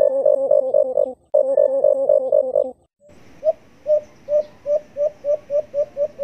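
Recorded dove calls played as a lure, in the manner of the white-eared brown dove (alimukon). First comes a fast, even run of low pulsing coos, broken once about a second in and stopping near three seconds. Then, over a faint hiss, a string of hollow single coos comes quicker and quicker.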